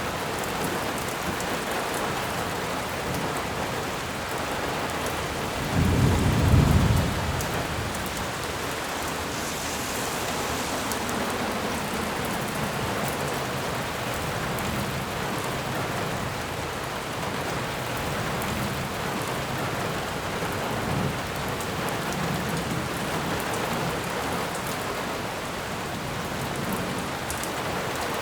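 Steady rain, a dense even hiss of falling drops, with a brief deep rumble about six seconds in, lasting about a second and a half.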